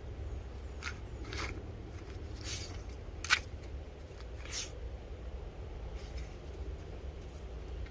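A pit bull puppy sniffing at a turtle: about five short, noisy sniffs in the first five seconds, the sharpest a little past three seconds in, over a steady low rumble.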